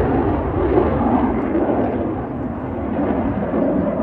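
Engine noise of a Saab JAS 39 Gripen single-engine fighter jet in display flight overhead: a loud, rough rumbling jet noise that swells and eases slightly.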